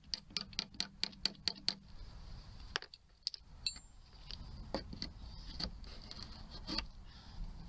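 Small 4-ounce hammer tapping lightly: about a dozen quick strikes in the first two seconds, then a few single taps spaced out over the rest.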